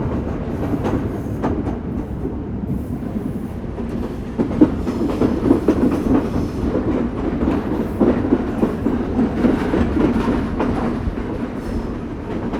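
Express train running along the track, heard from inside a passenger carriage: a steady rumble of the coaches with the clickety-clack of wheels over rail joints.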